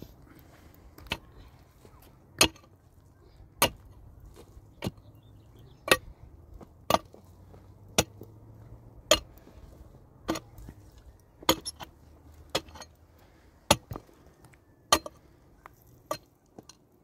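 Steady, regular sharp strikes, about one every 1.2 seconds, fourteen or so in a row, with a few softer ones near the end.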